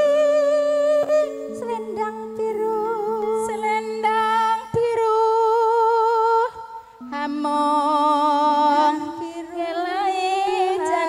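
A woman singing a slow Javanese campursari melody in long, wavering held notes over sustained accompaniment chords, with a brief break about seven seconds in.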